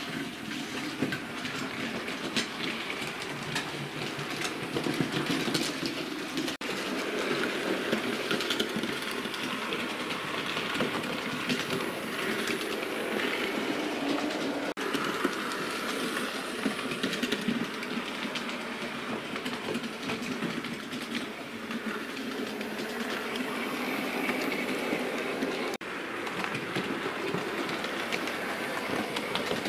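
Two Hornby OO-gauge A4 model steam locomotives running on model railway track: a steady motor whirr with rapid small clicks of the wheels over rail joints and points.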